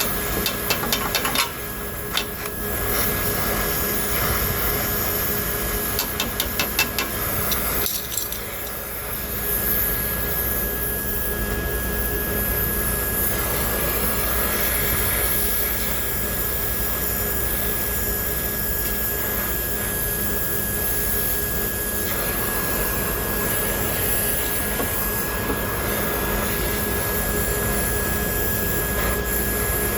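Brazing torch flame hissing steadily on the compressor's copper line joints. Short bursts of metallic rattling and tapping come a second or two in and again about six seconds in.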